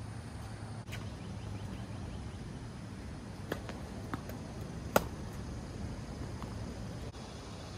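A few sharp knocks of a tennis ball being hit and bouncing on a court, the loudest a single crack about five seconds in, over a steady low background hum.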